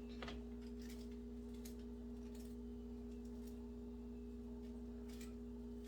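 Faint, scattered knife taps on a cutting board as cooked chicken is cut into pieces, over a steady low hum.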